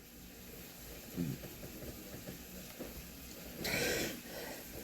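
Quiet room noise in a pause between sentences, with a brief breath drawn in near the end.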